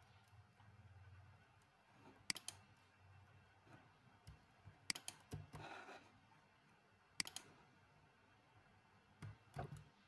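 A few faint clicks of computer mouse buttons and keys: four short single or doubled clicks about two to two and a half seconds apart, over near-quiet room tone.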